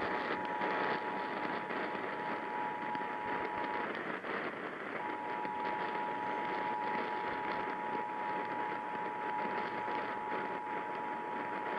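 Emergency Alert System attention signal: the steady two-tone alarm (853 and 960 Hz together) over a heavy hiss of radio reception noise. The tone drops out for about a second around four seconds in, then resumes.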